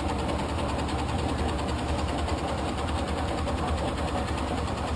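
Metal lathe running steadily, spinning a Mazda rotary engine rotor in its chuck while the tool takes a light facing pass across the rotor's side to clearance it. A constant machine hum.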